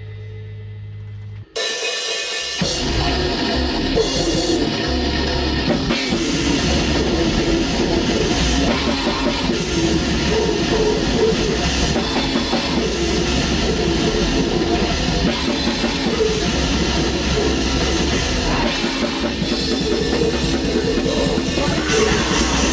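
A steady low hum, then about a second and a half in a metal band starts playing loud and dense: drum kit with cymbals and distorted guitar, in black metal style.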